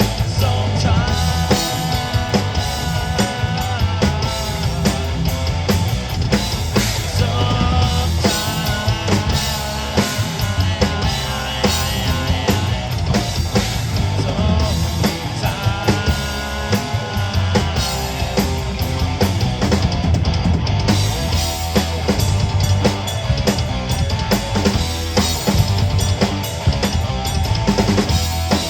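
Rock band playing a song, with the drum kit and bass drum prominent under pitched melody lines.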